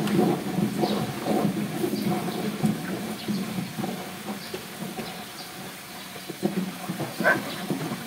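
Common hill myna in a cage making low, broken, crackly calls, louder at first, with one sharper, higher call about seven seconds in.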